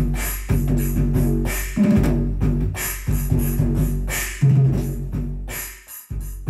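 Electronic drum kit played with sticks over music that carries a bass line: regular drum and cymbal hits on top of held bass notes. Near the end the sound briefly cuts out before the beat comes back in.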